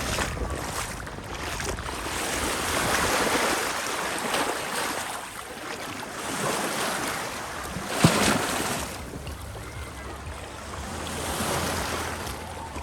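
Small sea waves washing onto the beach, the surf swelling and falling back every few seconds, with one brief sharp slap about eight seconds in.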